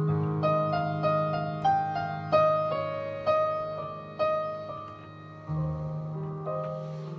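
Solo keyboard improvisation in a piano sound: a slow melody of single struck notes, each fading away, over a held low bass note, with new low notes entering near the end.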